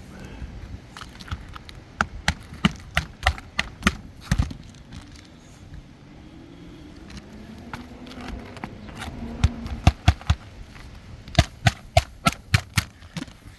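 Hammer driving roofing nails into a replacement asphalt shingle: two runs of sharp, rapid blows, with a quieter pause between them.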